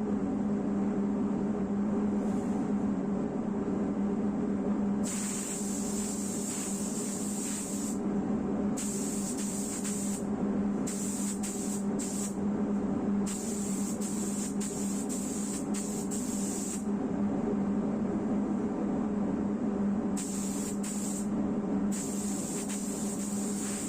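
Air spray gun hissing in repeated on-off passes, each lasting one to three seconds, over a steady mechanical hum.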